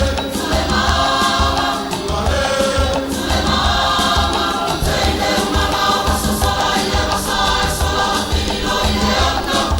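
A group of voices singing a Samoan siva song together, over a steady beat.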